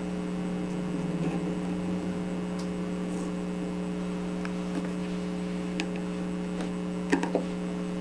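Steady electrical hum with a few faint, light clicks near the end.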